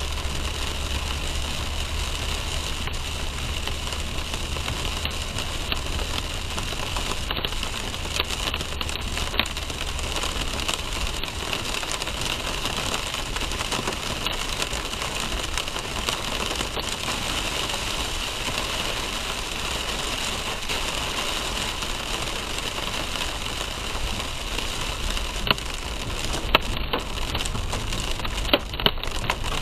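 Rain and driving noise heard from inside a car: a steady hiss, with a low engine hum that fades out about a third of the way through. Scattered sharp ticks, like drops striking the car, become more frequent near the end.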